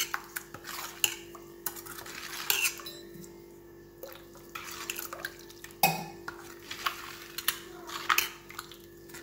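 Steel spoon clinking and scraping against a stainless-steel bowl while stirring a wet yogurt mixture, in irregular knocks with a quieter stretch in the middle.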